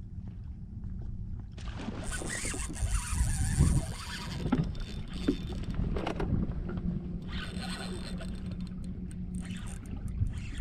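A boat's motor humming steadily and low, with loud bouts of hissing noise from about two seconds in and again near the end.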